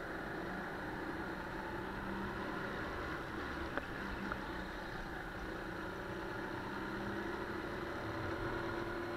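200 cc Honda single-cylinder four-stroke engine of a Sodi GT5R kart running under load, its pitch shifting as the throttle is worked through the corners. Two short sharp knocks come about four seconds in, half a second apart.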